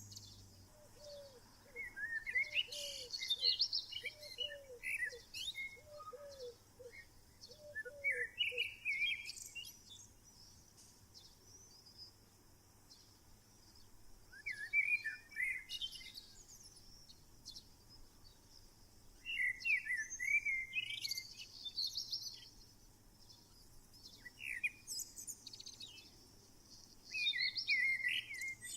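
Wild birds singing: short warbling song phrases come every few seconds, with quieter gaps between. During the first third a lower call repeats about once a second.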